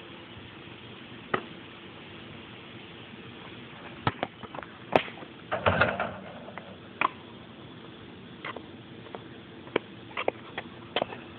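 A basketball dunk on a portable backyard hoop: scattered knocks and thumps, then a louder, longer clatter about halfway through as the ball hits the rim and backboard.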